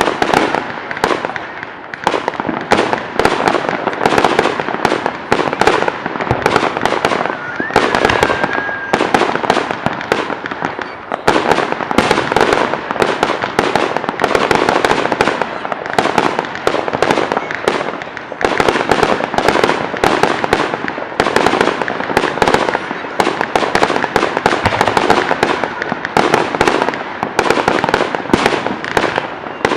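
Fireworks going off in a dense, continuous barrage of bangs and crackles, with a brief whistle about eight seconds in.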